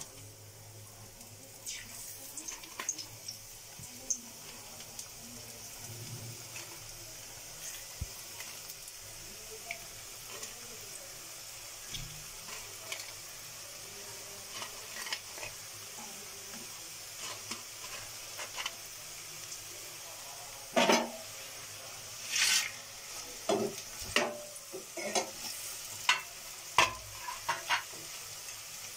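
Potato chips sizzling in hot oil in a wok, refried on high heat to make them crisp. From about twenty seconds in, a steel slotted spatula scrapes and clicks against the wok as the chips are turned.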